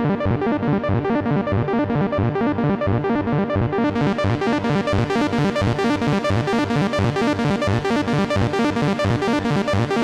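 Behringer MonoPoly analogue synthesizer arpeggiating in poly mode, each note on a different VCO, with effects off and no sync or cross-modulation: a fast, even run of repeating notes. About four seconds in, the tone turns brighter.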